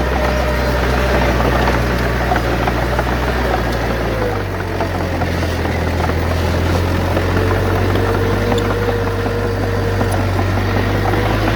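Heavy diesel engine of earthmoving machinery running steadily, its low note shifting about four seconds in as the load or throttle changes.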